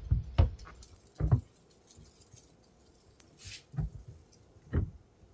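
Hard plastic knocks and clicks as a car taillight assembly is pushed and fitted into its housing: a cluster of sharp knocks in the first second and a half, a brief rustle, then two more knocks about a second apart near the end.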